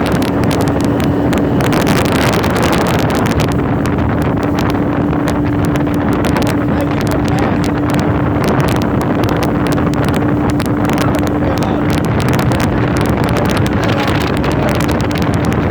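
Motorboat engine running at a steady speed, its pitch holding constant. Wind buffets the microphone throughout.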